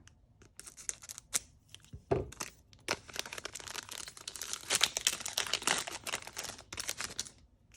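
Foil Pokémon trading-card booster pack wrapper being torn open and crinkled: a run of crackling, rustling tears.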